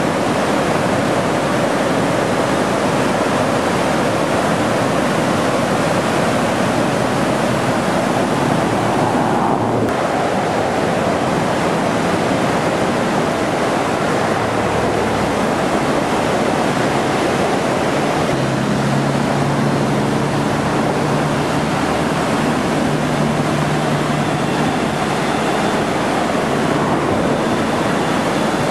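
Whitewater rapids rushing, a loud, steady wash of churning water that is briefly muffled about ten seconds in.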